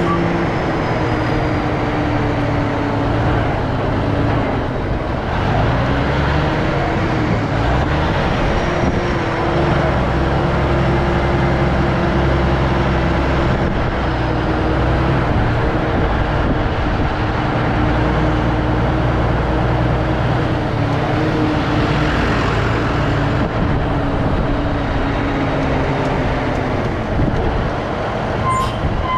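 Heavy engine of large farm machinery or a truck running steadily under load, its pitch drifting slightly up and down, with a deep rumble.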